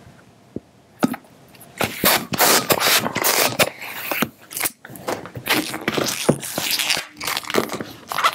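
Hand balloon pump being worked to inflate a 260 twisting balloon. Repeated strokes of rushing air start about a second in and run on to near the end.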